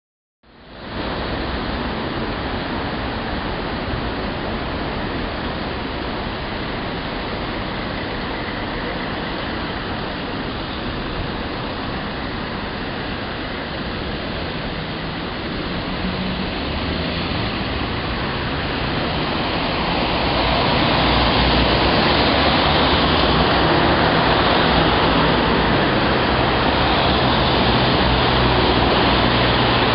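Road traffic at a busy light-controlled junction: a steady hum of engines and tyres. It grows louder about two-thirds of the way through, as queued cars move off and pass by.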